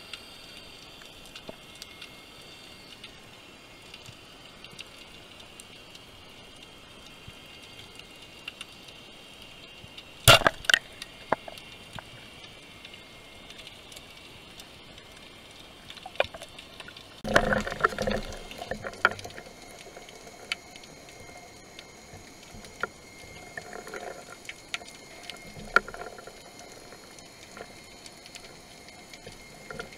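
Underwater ambience heard through a diver's camera: a steady faint hiss with scattered ticks. About ten seconds in, a sharp crack as a speargun fires at a fish, followed by a few smaller clicks, and later a louder rushing, bubbling burst of water noise for about two seconds.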